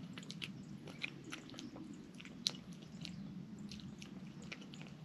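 Cat chewing and smacking as it eats from a bowl: soft, irregular wet clicks, with a sharper one about two and a half seconds in.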